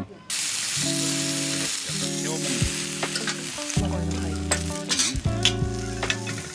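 Food sizzling in a hot pan, the sizzle starting suddenly just after the start, with scattered sharp crackles, over background music.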